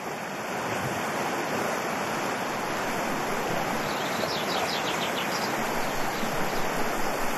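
River water rushing steadily over shallow rapids, with a few faint high chirps around the middle.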